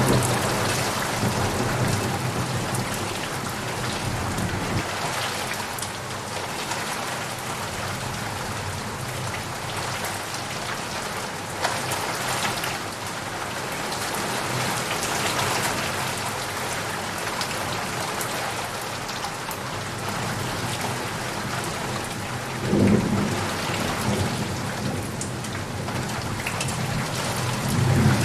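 Steady heavy rain with rolling thunder rumbling underneath. A loud rumble is dying away at the start, and fresh rumbles swell up late on and again at the end.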